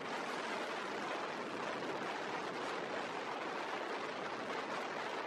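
Steady rushing wind and road noise of a vehicle driving along a highway, with no engine note standing out.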